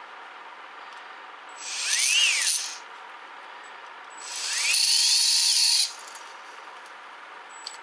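Small brushed DC motor of a mini angle grinder, out of its housing, run twice unloaded: a whir rising in pitch as it spins up and falling as it stops, the second run longer, holding its speed and then cutting off. A faint click near the end. The motor runs; the switch is the part that is failing.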